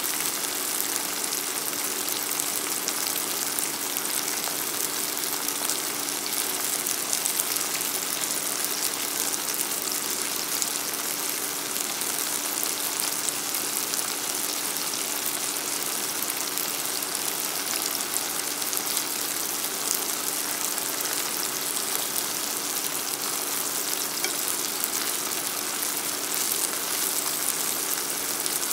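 Asparagus spears frying in oil and butter in a nonstick skillet over medium-high heat: an even, steady sizzle.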